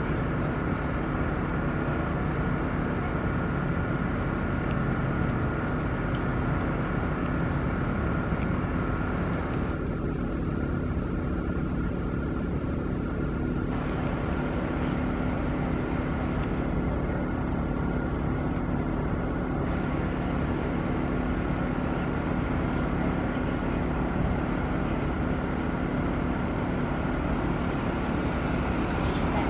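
A steady mechanical drone with a constant whine and a low rumble, unchanging in level throughout.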